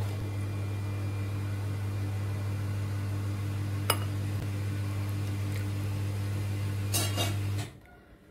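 A steady electrical appliance hum, a low mains buzz over a hiss, that stops abruptly near the end. There is a single sharp click midway, and a few light clinks of a ceramic bowl just before the hum cuts off.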